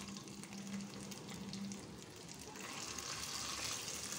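Faint sizzle of a hot ghee-and-oil tempering just poured over cooked venpongal in an aluminium pressure cooker. From a bit past halfway it grows slightly as a wooden spatula starts stirring the soft rice.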